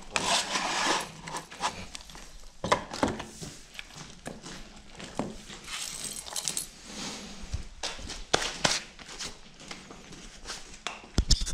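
Steel safety chains of a PTO drive shaft jangling and clinking on a concrete floor as the shaft with its plastic guard is handled and set down, with irregular short knocks and clicks.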